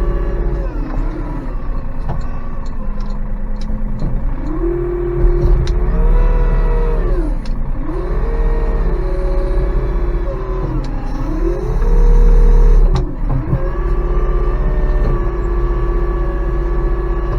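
Hungry livestock calling for food at feeding time: a run of long, pitched calls that rise and fall, several overlapping, with a longer held call near the end, over a steady low hum.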